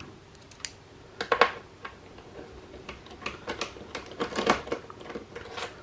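Screwdriver backing a long screw out of an Xbox One S housing: irregular small clicks and rattles of tool, screw and plastic, a little busier around the fourth and fifth second.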